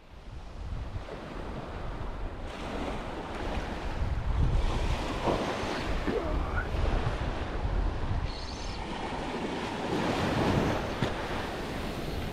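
Ocean surf breaking and washing up the beach, swelling twice, with wind buffeting the microphone.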